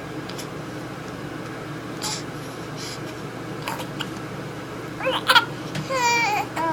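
A six-week-old baby hiccuping: several short, sharp hics about a second apart. Near the end come high-pitched fussing vocal sounds.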